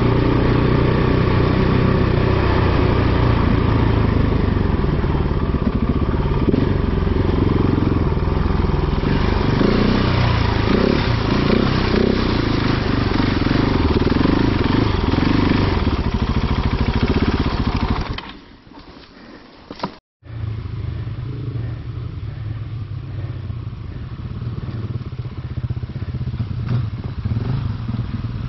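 A motor vehicle's engine running loudly and steadily. About two-thirds of the way through it drops away for a couple of seconds and cuts out abruptly, then runs again more quietly, building up near the end.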